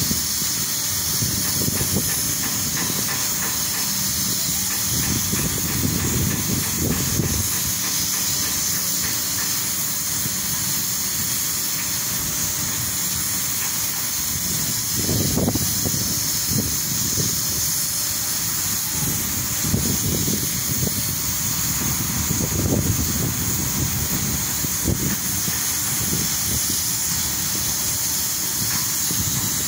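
Wind buffeting the microphone in irregular low gusts, over a steady high hiss, as small waves wash onto a sandy shore.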